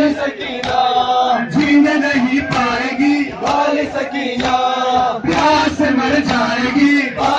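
Male voices chanting a noha, a Shia Muharram lament, with regular slaps of chest-beating (matam) about once a second keeping time with the chant.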